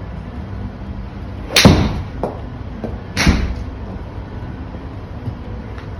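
Two golf shots: a club swung and striking the ball sharply, twice, about a second and a half apart.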